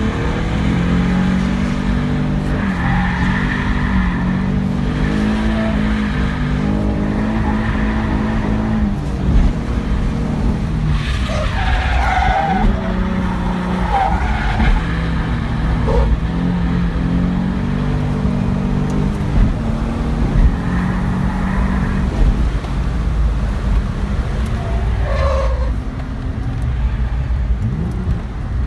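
Nissan 350Z drift car heard from inside the cabin, its engine note rising and falling as the driver works the throttle and gears, with tyres squealing in short bursts during slides several times along the way.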